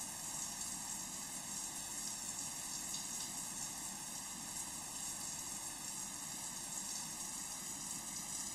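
Shower water running, a steady spraying hiss.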